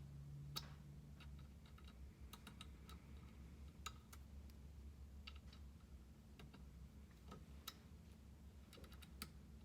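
Faint, irregular metallic clicks of an Allen wrench working the set screws of a clamp, over a low steady hum.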